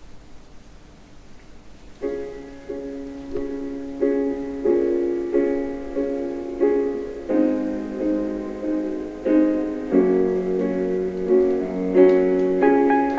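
Background music: a piano intro playing repeated chords, starting about two seconds in, with the bass note moving every few beats.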